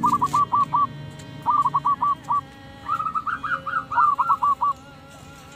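Several zebra doves (perkutut) cooing together: rapid runs of short, hooked staccato notes in bursts, some overlapping. The calls stop about a second before the end, leaving only faint steady tones underneath.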